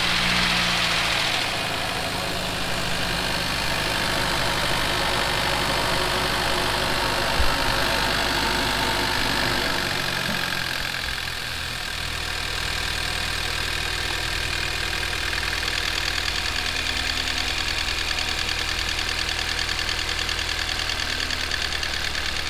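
Hyundai Veloster Turbo's freshly swapped 1.6-litre turbocharged four-cylinder Gamma GDI engine running on its first start, louder for the first second or so and then settling into a steady idle. One short knock is heard about seven seconds in.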